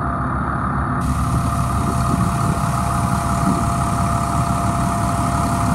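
Fire truck's 8.3-litre Cummins diesel idling steadily, with a thin steady whine over the rumble and a hiss that comes in about a second in.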